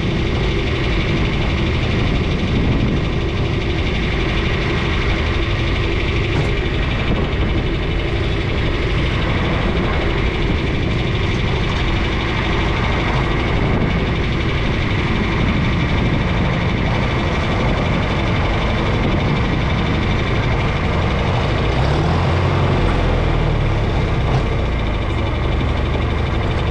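An engine running steadily, with a deeper low rumble coming in about 22 seconds in.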